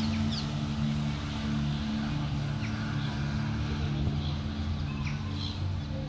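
A steady low engine drone, with short high bird chirps scattered over it.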